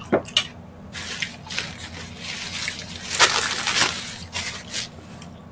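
Close-miked wet, squishy food-handling sounds from fingers working saucy food, a soft rustling stretch that is loudest in the middle.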